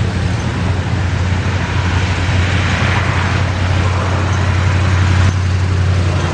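Steady, loud engine rumble with a low hum and a broad rushing roar that swells a couple of seconds in.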